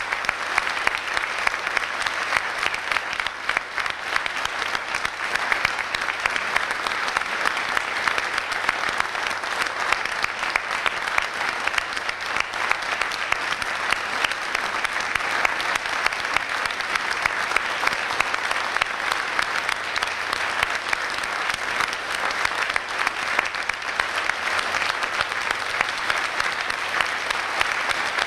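Theatre audience applauding a curtain call: dense, steady clapping.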